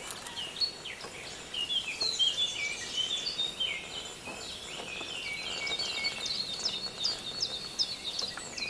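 Several forest birds chirping and singing at once: many short overlapping chirps and quick sliding notes, busier from about a second and a half in.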